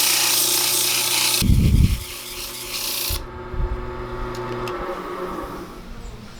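Wood lathe running with a cedar bowl on it, the wood being worked with a loud hissing scrape that stops about three seconds in, with a low thump partway through. The lathe's steady hum then fades away about five seconds in as it winds down.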